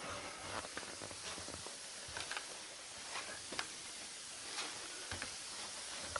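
A steady hiss with scattered light clicks and taps.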